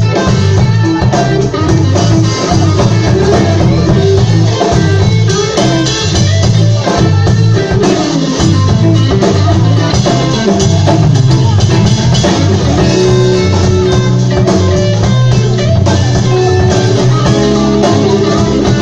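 Live band playing an instrumental passage, with electric guitar over bass and drum kit.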